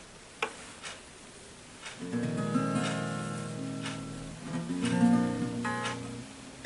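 Acoustic guitar with a capo, strummed. After a couple of light taps, chords start about two seconds in and ring on, with the loudest strum around five seconds in.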